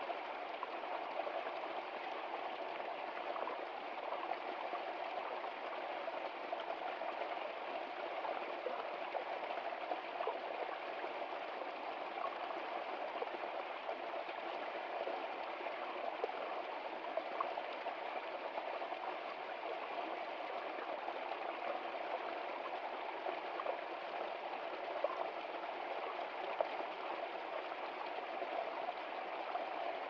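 Small, partly frozen stream trickling and gurgling over rocks under ice, a steady babble with small splashes here and there.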